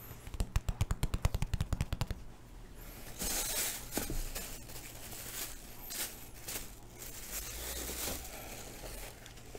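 Fingertips tapping rapidly on the crust of a round Turkish Ramazan flatbread, about seven taps a second for two seconds. Then the rustle and crinkle of a thin plastic bag as the bread inside it is handled.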